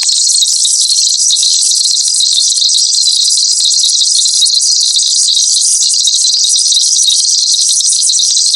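Electronic pest-repellent sound effect: a loud, steady, shrill high-pitched hiss with a rapid fine flutter, unbroken throughout.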